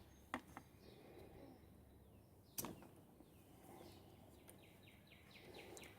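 Near silence with a few faint clicks of metal tools on the nitro engine's clutch as it is worked loose against thread-locker, the sharpest about two and a half seconds in.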